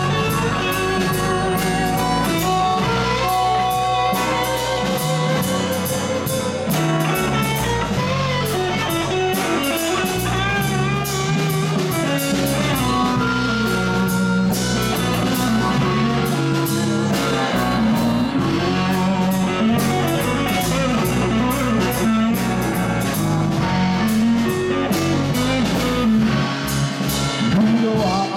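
Live blues band playing: a harmonica played into a hand-held microphone over electric guitars and a drum kit.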